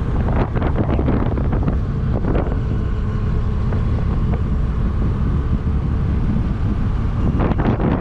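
Wind rushing over the microphone of a motorcycle at road speed, over the steady running of a Royal Enfield Interceptor 650's 648 cc parallel-twin engine.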